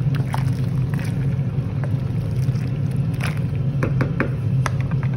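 Wooden spatula stirring penne in a nonstick pan of simmering water, giving several light taps and scrapes, most of them a little past the middle. Underneath is a loud, steady low rumble.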